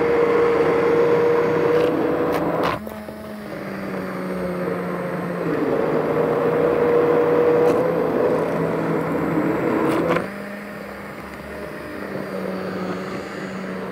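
Hand-held immersion blender running with its blade submerged in a pot of thick roasted-vegetable soup, the motor whirring at a steady pitch over the churning of the purée. The sound drops sharply about three seconds in and again about ten seconds in, then builds back up.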